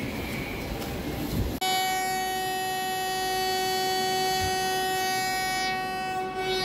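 Busy railway background noise, then about a second and a half in a train horn cuts in and sounds one long steady blast at a single pitch for about five seconds.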